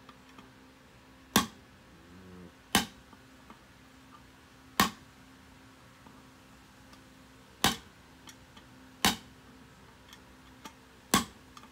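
Small hammer striking a steel drift to drive a bearing race into the hub of a brake drum: six sharp strikes about one to three seconds apart, with a faint steady hum underneath.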